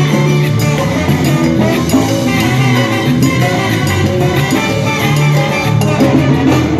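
Live salsa band playing an instrumental passage, with a bass line, percussion and horns.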